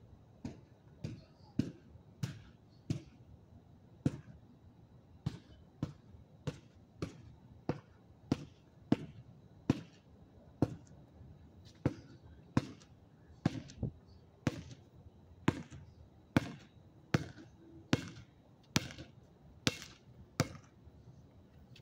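A basketball being dribbled: about thirty sharp bounces at a steady pace of roughly one and a half a second.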